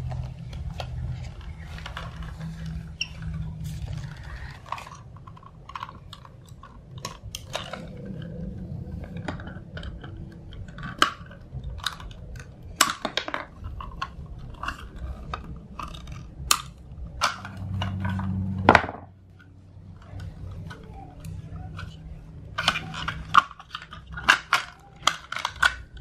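An old plastic electrical outlet box being cut and broken apart with a hand tool: irregular sharp cracks and snaps of plastic with handling clatter, a cluster of quicker snaps near the end.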